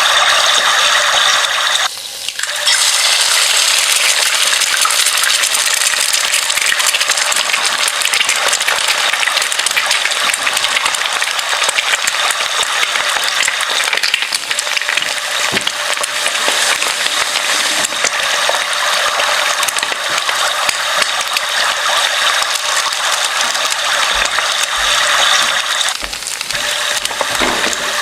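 Dense, continuous mechanical rattling and clicking, like a ratchet or gears turning, with a brief break about two seconds in.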